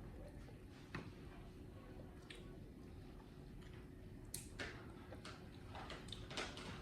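Faint, scattered clicks and small crunches of a monkey eating corn, a few sharper ones in the second half, over a steady low hum.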